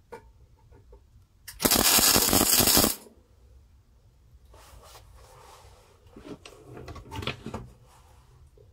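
Clarke Pro 90 MIG welder laying a short spot weld on thin sheet steel: the arc crackles loudly for about a second, starting and stopping abruptly. Softer clatter and scraping follow a few seconds later.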